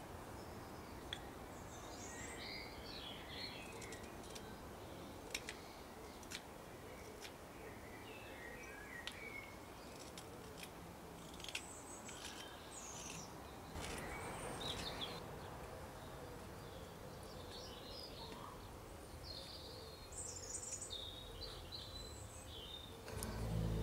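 Garden birds chirping and singing on and off over a steady background hiss, with a few faint clicks from a carving knife working a seasoned cherry spoon blank. Music comes in at the very end.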